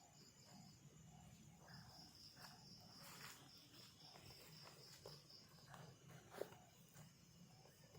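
Faint high-pitched chirring of night insects, breaking off for about a second near the start and then running on, with a few faint clicks and rustles.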